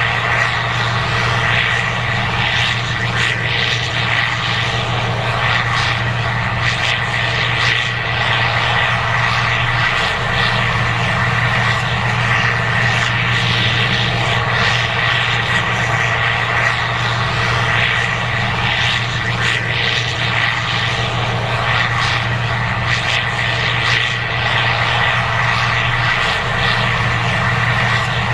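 Case IH 2188 Axial-Flow combine harvester running steadily while harvesting corn: a constant low engine drone with a steady high whine over a rush of machine noise.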